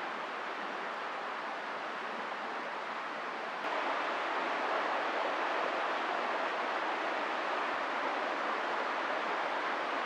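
Steady outdoor woodland ambience: an even hiss with no distinct events, which steps up a little louder about four seconds in.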